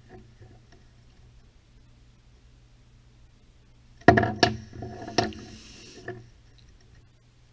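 Handling noise on a wooden workbench: a few sharp knocks and clacks as small plastic battery packs and a charger are put down, with a brief rustle, all starting about four seconds in.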